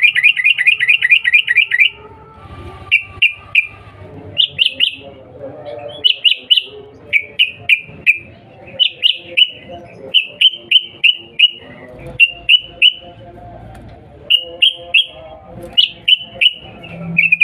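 Yellow-vented bulbul (trucukan) giving its chattering 'cuk cuk' calls: a fast run of about ten notes at the start, then short groups of two to four sharp notes repeated through the rest.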